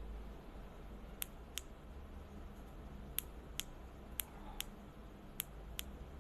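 Four pairs of small, sharp clicks, the two clicks in each pair less than half a second apart, over a low steady hum.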